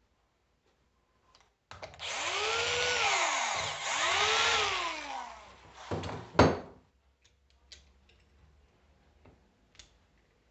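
Cordless drill-driver backing out the solenoid mounting screws on a Prestolite starter motor: the motor whines, rising and falling in pitch twice over about four seconds. A sharp clunk follows about six and a half seconds in, then a few faint clicks.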